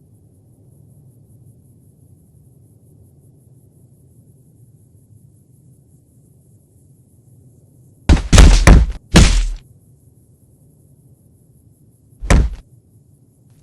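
A few loud thuds and knocks: a tight cluster about eight seconds in and a single one near the end, over a faint low hum.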